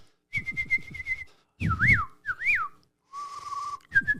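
Bird-like whistling: a warbling held note, then two swooping up-and-down whistles, a short lower note, and a long warbling note starting near the end.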